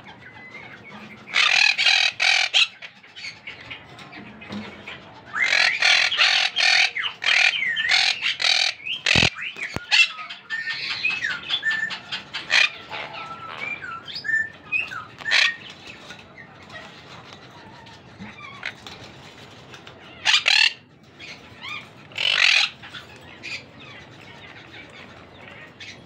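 Parrot chicks in a clay pot nest calling in harsh, rapid bursts, with quieter calls between them. A single low knock comes about nine seconds in.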